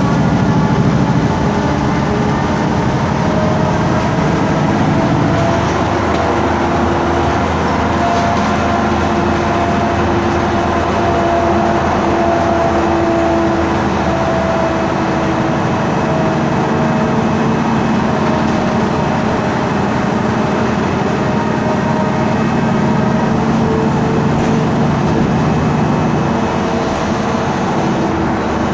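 Steady running noise heard inside the cabin of a moving MAN Lion's City G articulated bus: the rumble of its CNG engine and the road, with faint whining tones that slowly rise and fall in pitch.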